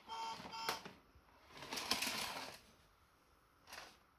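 Short electronic beeps from a VTech Tut Tut Baby Flitzer toy parking garage, then about a second of hard plastic rattling as the toy's parts and car are worked by hand, and a brief plastic scrape near the end.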